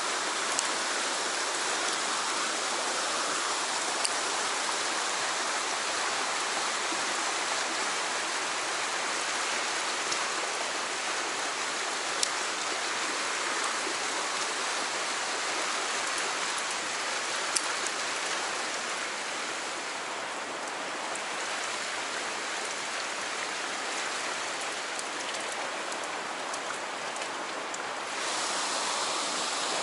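Fast water rushing through a narrow rock channel: a steady, even rush, slightly softer for a while and swelling again near the end, with a few brief sharp ticks.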